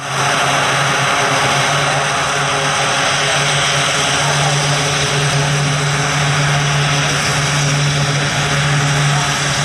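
Grumman E-2C Hawkeye's two Allison T56 turboprop engines running on the ground with the propellers turning. Steady propeller drone with a strong low hum under a broad turbine hiss.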